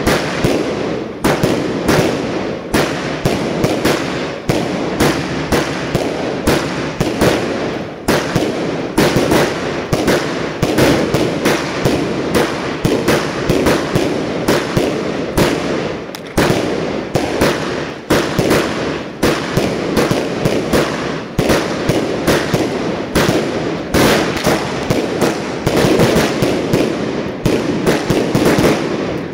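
Cassette-style firework barrage: aerial shells fire and burst in rapid succession, several loud bangs a second with no let-up, over a continuous crackle.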